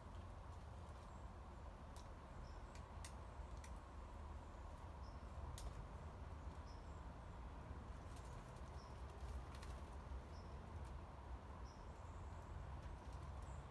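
Faint outdoor ambience with a low rumble, under a short high chirp that repeats every second or two, plus a few faint clicks.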